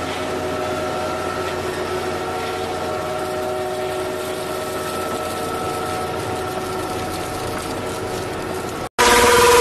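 Tractor-drawn carrot harvester running in the field: a steady mechanical drone with several held tones from the engine and the lifting belts. Near the end it cuts off abruptly and a louder sound with a falling pitch takes over.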